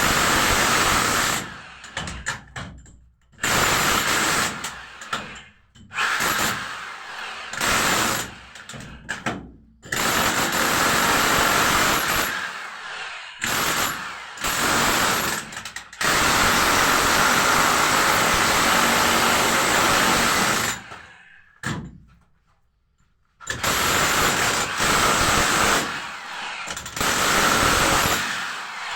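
Handheld power tool running in repeated bursts, starting and stopping every second or few, with one longer run of about five seconds past the middle and a short silent pause soon after.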